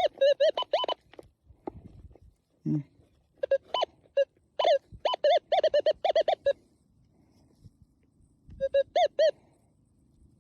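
Minelab metal detector sounding target signals: clusters of short, rapid warbling beeps, each bending up and down in pitch. There is a burst at the start, a longer run from about three and a half to six and a half seconds in, and a short burst near the end.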